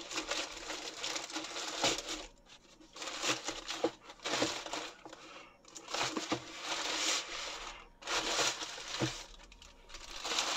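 Plastic courier mailer crinkling and rustling as it is torn open and pulled off a cardboard box, in about four bouts with short pauses between.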